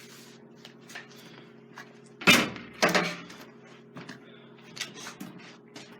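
Welding gear being handled: two loud sharp knocks about half a second apart, then lighter clicks and taps, over a steady low electrical hum.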